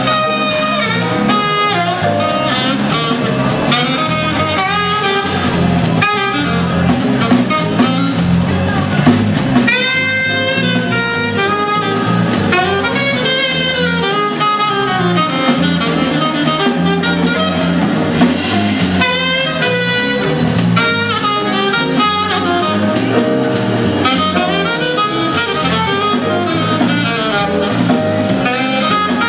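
Alto saxophone playing a jazz solo in quick runs of notes, backed by a big band's rhythm section with drum kit.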